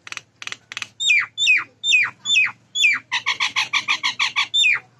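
Common myna calling: a few short harsh notes, then a string of about six loud whistles each falling steeply in pitch, then a fast run of about a dozen repeated notes, and one more falling whistle near the end.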